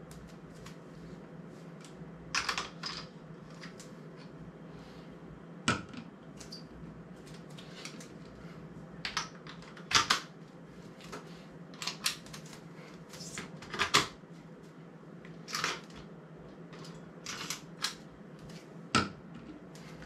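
Camera gear being handled on the quick-release mounts of a YC Onion Nut Q1 system: irregular sharp clicks and knocks, about a dozen, the loudest about halfway through, a few seconds later and near the end. A steady low hum runs underneath.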